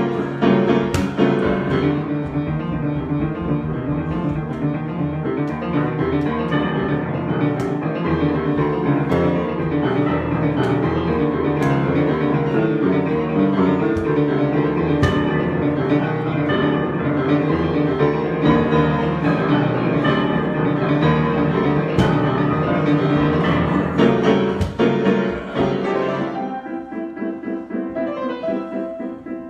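Solo piano improvisation with dense, full chords and runs played continuously. The playing thins out and gets softer near the end.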